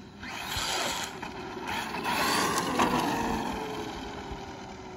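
Traxxas Maxx RC truck on 4S brushless power speeding past on wet pavement: a motor whine over tyre hiss, building to a peak about two to three seconds in, then falling in pitch and fading as the truck moves away.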